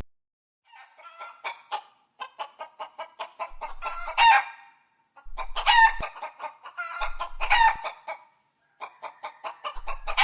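Chickens clucking and squawking in four bursts with short silences between them. Quick clucks build to louder cackling cries.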